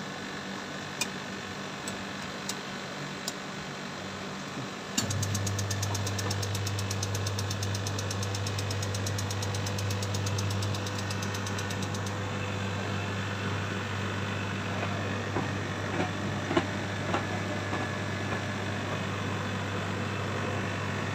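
A few clicks of control-panel switches, then about five seconds in a commercial tumble dryer's drum motor starts and runs with a steady low hum, a fast even ticking riding on it for the first several seconds. The drum turns one way only: the machine's fault is that it will not reverse direction.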